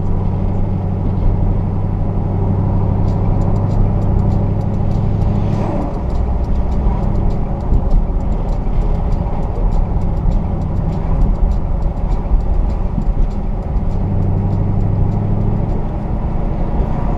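Fifth-generation Chevrolet Camaro driving through town: a steady engine drone over road noise. The engine note drops about six seconds in and comes back up near the end.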